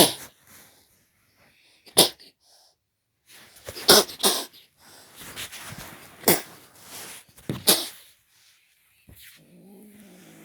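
A kitten hissing and spitting in sharp bursts, about five of them, the loudest right at the start. Near the end it starts a low, steady growl.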